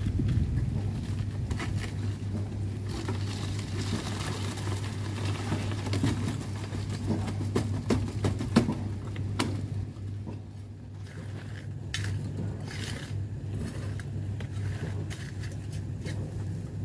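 Steel wheelbarrow of wet concrete being wheeled along and tipped into wooden beam formwork, with the tray clanking and knocking as it is emptied, the loudest knock a little past the middle. A steady low hum runs underneath throughout.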